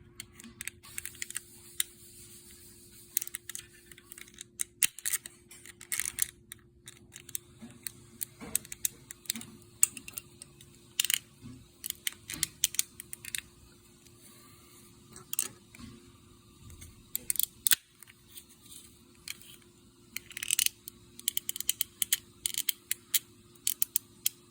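A flat screwdriver prying and scraping at the plastic cover of a cordless cellular blind's mechanism, making irregular small clicks, taps and scratches.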